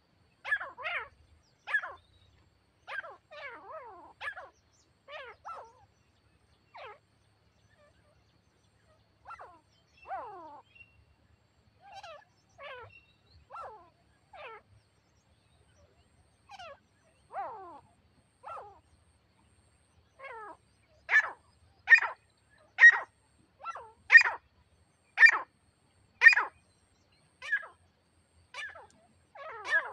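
Grey francolin calling: a series of short, sharp, falling notes about one a second. They are sparse and uneven in the middle, then come in a loud, regular run of about seven calls near the end.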